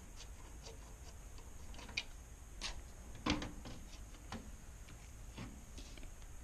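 Scattered light clicks and knocks from a Thermaltake Core V71 full-tower PC case being handled as it is opened. There is a sharp tap about two seconds in, and the loudest knock comes a little after three seconds.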